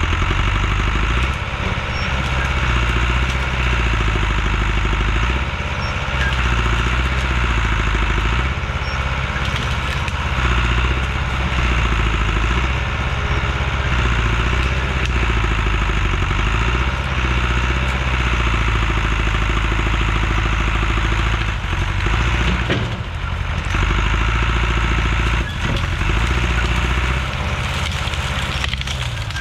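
Engine of heavy land-clearing equipment running at work, its low note rising and falling as the load changes.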